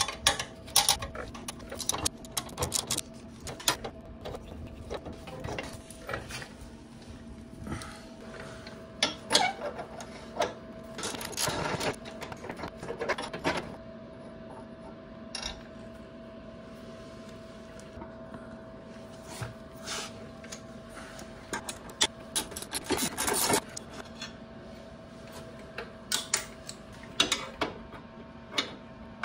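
Hand ratchet clicking in bursts and loose metal clinks as the rear-fender bolts on a Harley-Davidson Electra Glide are backed out, over a steady faint hum.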